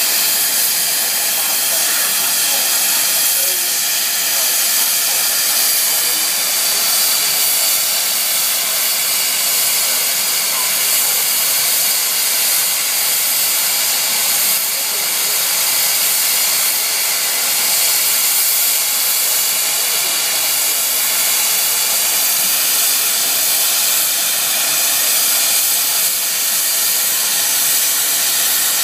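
SECR C Class 0-6-0 steam locomotive blowing off steam through its safety valves while standing: a loud, steady hiss, the sign of the boiler at full working pressure.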